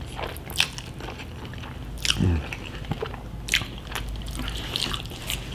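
Close-miked chewing of palabok noodles with shrimp: wet mouth clicks and lip smacks every second or so, and a short falling hum of enjoyment about two seconds in.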